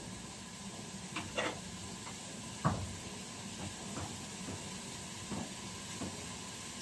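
Chopped onion frying in a little oil in a stainless steel pot on a gas burner: a steady low sizzle and hiss. Over it come scattered off-camera knocks and clicks, the loudest about two and a half seconds in.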